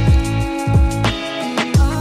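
Background music with a steady beat: deep bass-drum hits under held chords.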